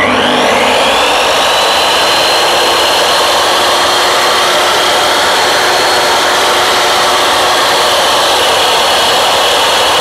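DeWalt DW714 10-inch mitre saw's 1650 W motor and blade spinning up in the first second, then running steadily with no load: a high whine over a rushing hiss.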